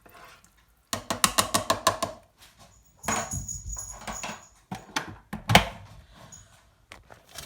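A spoon clinking rapidly against the metal pot of a Clever Chef multi cooker as the soup is stirred, then a high, thin electronic tone for about a second and a single loud knock.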